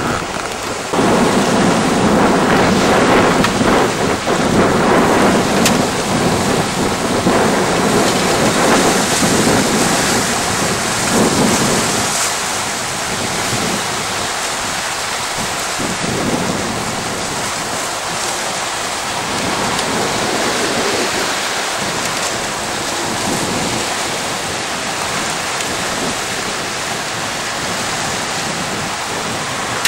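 Steady rushing noise of wind on the camcorder microphone over sea surf breaking on a rocky shore, louder and gustier for about the first dozen seconds, then steadier.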